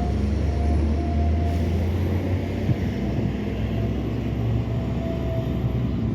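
A boat's engine giving a loud, steady low rumble.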